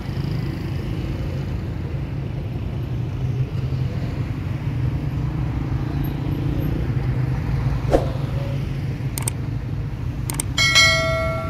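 Steady rumble of city street traffic, cars and motorbikes passing close by. Near the end come a few sharp clicks and then a short bell chime, the sound effect of a subscribe-button animation.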